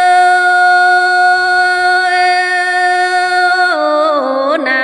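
A Dao woman's unaccompanied lượn folk singing. She holds one long, steady high note, then about four seconds in slides down in pitch into wavering ornaments.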